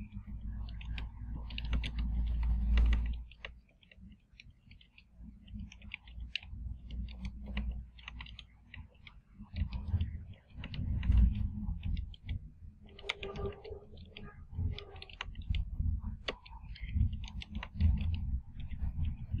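Computer keyboard being typed on: irregular key clicks, some in quick runs, over a low background rumble.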